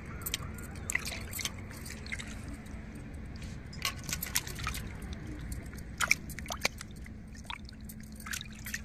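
Cut pomfret pieces being rubbed clean by hand in a metal bowl of water: irregular splashing, squelching and dripping, with the sharpest splashes about four and six seconds in.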